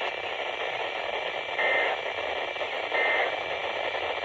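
Radio static hissing steadily, with two short high beeps about a second and a half apart.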